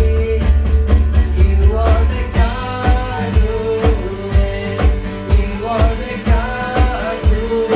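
Contemporary worship band music with a steady drum beat, bass and a melody line that may be sung.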